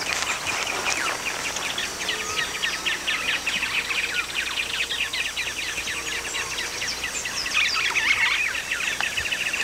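Many small birds chirping together, a dense chorus of short, rapid chirps that grows busier near the end.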